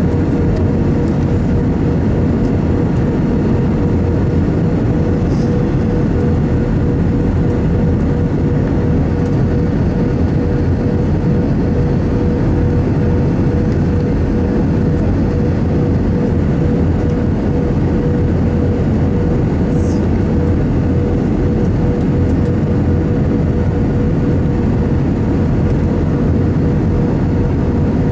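Steady roar of an Airbus A319's engines and rushing air, heard inside the cabin during the descent to land, with a steady droning tone running through it.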